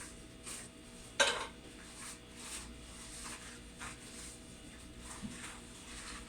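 Refrigerator humming steadily, with faint light knocks recurring about twice a second and one sharp clink about a second in.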